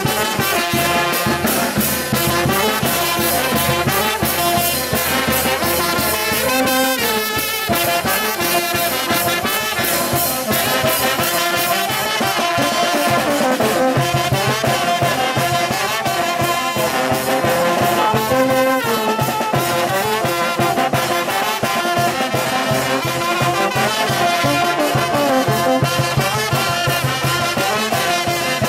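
Brass band (banda orquesta) playing live: saxophones and brass horns carry the tune over a snare drum and bass drum keeping a steady beat.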